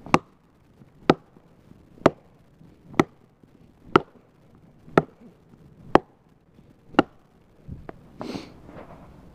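Gransfors Bruks small forest axe chopping one-handed into a standing tree, eight sharp strikes at about one per second. The wood is hard, 'like smacking glass', and the axe bounces off it.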